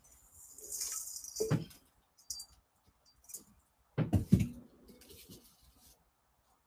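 Stainless-steel bath-bomb sphere mould scooping and scraping through dry, crumbly baking soda and citric acid mixture in a glass bowl: a gritty rustling scrape with a few knocks and clicks. The loudest is a low knock about four seconds in.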